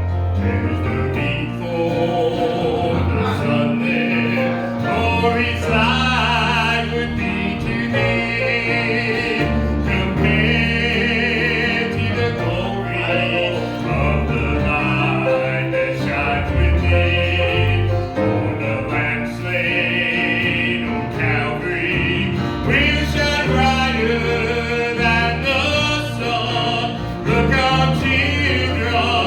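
Gospel group singing with instrumental accompaniment and a steady bass line.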